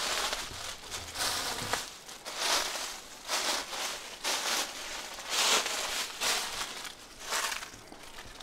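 Footsteps walking through dry fallen leaves, one crunching step about every second.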